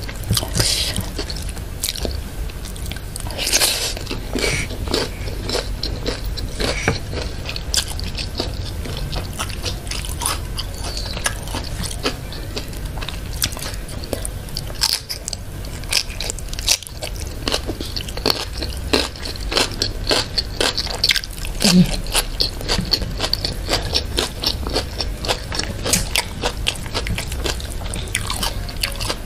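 Close-miked eating sounds: crunching bites and wet chewing of crispy fried food (fried duck, fried tempe and tofu with rice), many short crackles one after another.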